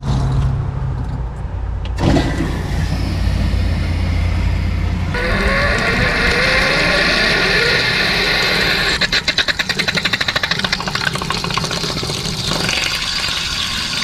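A low steady hum, then about five seconds in a hiss starts from the open pressure-relief valve of a Suburban RV water heater as the tank fills. The hiss turns into fast, irregular spitting and sputtering of air and water, then a steadier gush of water: the valve is purging trapped air from the tank.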